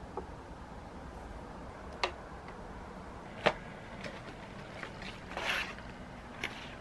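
Handling sounds: a few sharp light clicks or taps, and a short rustle about five seconds in.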